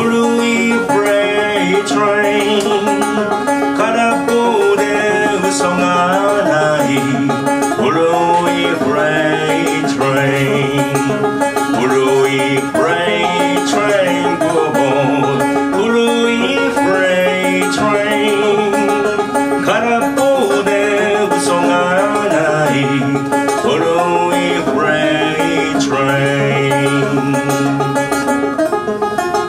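Banjo picked in a steady folk rhythm, an instrumental passage with a moving bass line under the melody.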